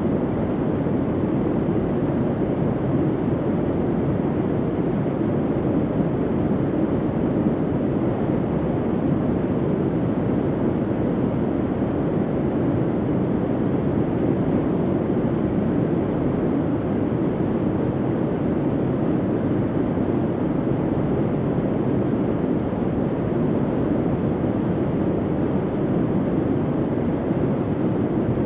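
Soft bunker hum ambience: a steady, unchanging low noise without distinct tones or events.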